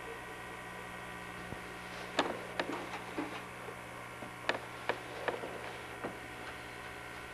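A cat crunching pieces of broccoli: about seven sharp, irregular crunches from about two to six seconds in, over a steady electrical hum.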